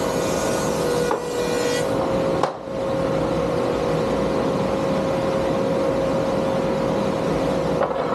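Powermatic spiral-cutterhead single-sided thickness planer running with a steady hum as a board is fed through it. There are a few knocks from the wood being handled, one about two and a half seconds in and another near the end.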